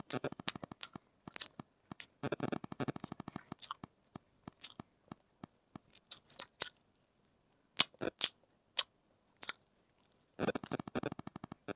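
A person chewing food close to the microphone, mouth-sounds of an eating video. The chewing comes in three runs of quick strokes, at the start, a couple of seconds in, and near the end, with single wet clicks and smacks between.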